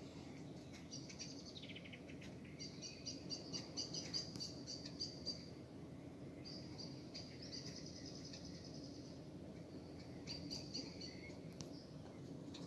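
Songbirds singing: several high, rapid trilled phrases of a few seconds each, with short pauses between, over a faint low rumble.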